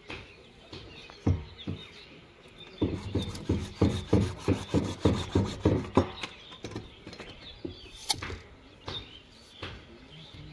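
A hand saw cutting a white plastic water pipe: about a dozen quick, even strokes, roughly four a second, starting about three seconds in, with a few single knocks and clicks before and after.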